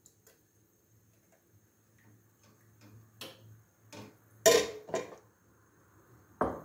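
A metal ladle clinking against a stainless-steel pot and a china plate as soup is ladled out: about five sharp clinks, irregularly spaced, starting about three seconds in, the loudest about four and a half seconds in.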